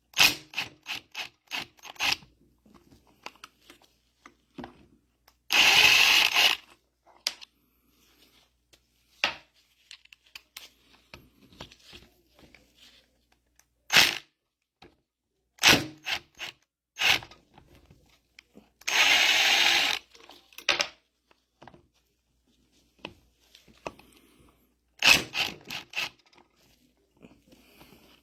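Tools clicking and knocking on the metal parts of a mini excavator's hydraulic control valve as it is taken apart, with two noisy bursts of about a second each, one early and one about two thirds of the way through.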